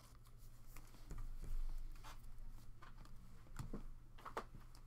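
Faint scratchy rustling and a few light clicks as a stack of glossy trading cards is flipped through by hand, the cards sliding against one another. A steady low hum runs underneath.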